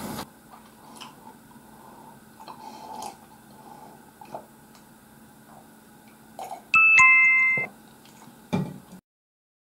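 Light clinks of chopsticks and a spoon on a ceramic plate. About seven seconds in, a loud descending two-note electronic 'ding-dong' chime like a door chime sounds once, followed by a thump, and the sound cuts off suddenly near the end.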